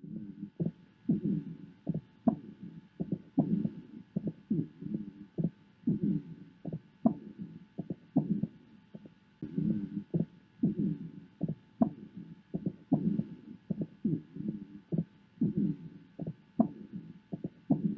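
Chest sounds heard through a stethoscope: heartbeats about once a second over breath sounds, with many short, sharp clicks scattered through them.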